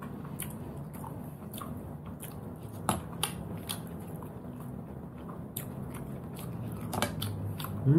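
Chewing and mouth sounds of a person eating cooked snails, with scattered sharp clicks of the shells and toothpick as the meat is picked out.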